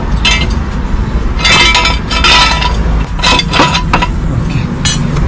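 Irregular metallic clinks and clanks from a car jack being worked to lift the car, over a steady low rumble.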